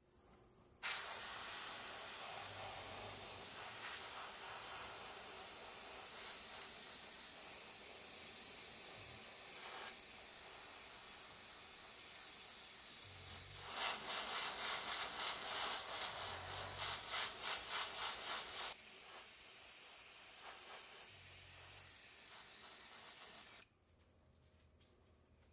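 Airbrush spraying paint: a steady hiss of air and paint that starts about a second in and cuts off near the end. Partway through, the hiss pulses rapidly for several seconds.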